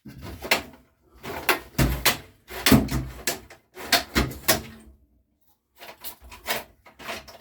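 Irregular clatter of knocks and clicks from tools and parts being handled, with a short pause about five seconds in.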